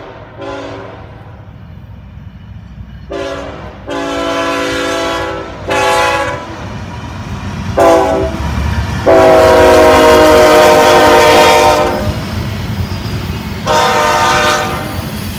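Freight diesel locomotive's multi-chime air horn sounding a series of blasts of varying length for a grade crossing, the longest and loudest about nine to twelve seconds in as the locomotive passes close, over the steady rumble of the train rolling by.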